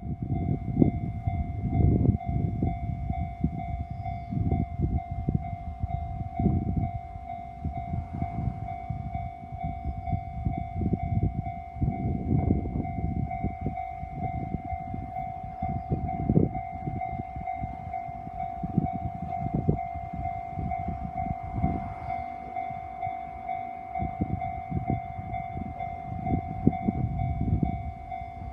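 Japanese level-crossing warning alarm ringing steadily with an unchanging electronic tone, the signal that a train is approaching. Irregular low rumbling surges sound beneath it throughout.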